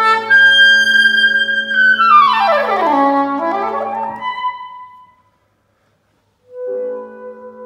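Soprano saxophone with piano: the saxophone holds a high note, then about two seconds in plays a fast run falling down through its range to a low note over sustained low piano notes. The music stops for about a second and a half, then saxophone and piano come back in softly near the end.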